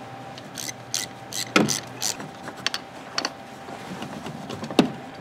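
Ratchet wrench with an E10 Torx socket clicking in short irregular bursts as it unscrews the transfer case actuator motor's mounting bolts, with scrapes and clinks of metal.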